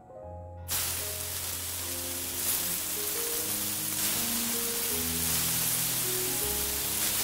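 Marinated rohu fish steaks sizzling in hot oil in a frying pan: the sizzle starts suddenly about a second in as the pieces go into the oil, then carries on steadily.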